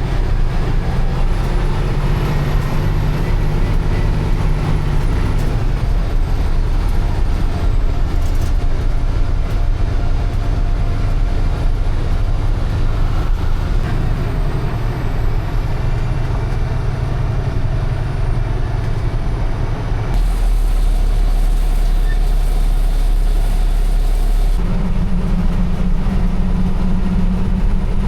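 Dump truck's diesel engine running steadily under way. The engine note changes about twenty seconds in and again a few seconds later.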